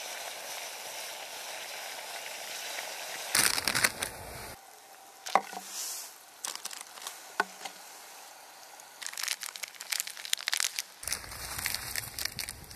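Wood fire burning hot after a large log has caught, with a steady hiss and repeated clusters of sharp crackles and pops.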